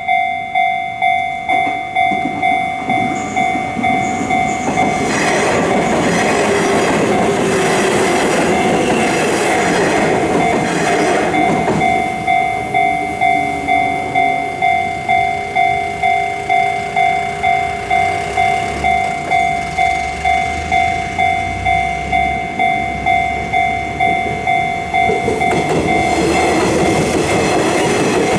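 Japanese level-crossing warning bell ringing, about two strikes a second, while a train passes with its wheels clattering over the rails. The bell stops near the end, and the train noise carries on.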